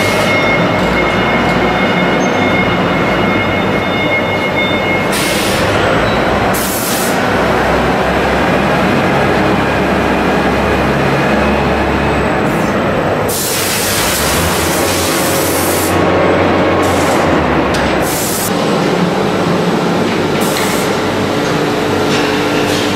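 Melamine short-cycle press line running: a steady, loud mechanical rumble and clatter from the machinery, broken by several short hisses, with a longer hiss about two-thirds of the way through.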